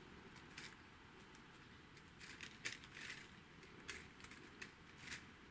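Faint crinkly rustling and a scatter of soft ticks from sequin maple leaves on wire branches being handled and set into place.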